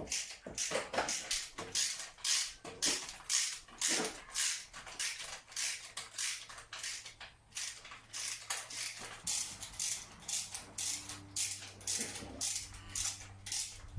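Irregular, repeated clicking of hand tools at work on a car engine, about two to three clicks a second. A faint steady low hum runs under the clicks from about six seconds in.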